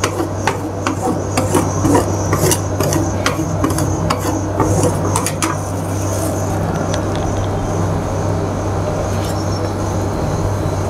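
Metal spatulas scraping, tapping and chopping on a stainless-steel cold plate as rolled ice cream is worked flat and scraped up into rolls, the strokes most frequent in the first five seconds or so. A steady low hum runs underneath.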